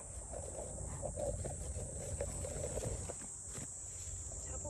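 A small kitten mewing faintly from under leafy roadside plants, with leaves and stems rustling as they are pushed aside, over a steady high hiss.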